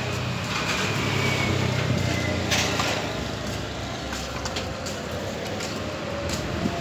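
Street traffic with a motor vehicle engine running close by; its low hum is strongest in the first few seconds, then eases.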